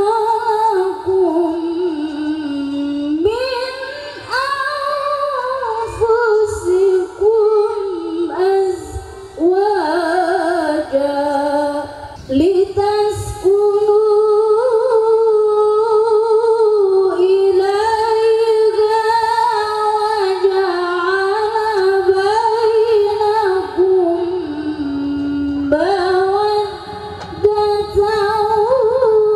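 A woman's solo Quran recitation (tilawah), chanted melodically into a microphone: long held notes with ornamented pitch bends, broken by short pauses between phrases.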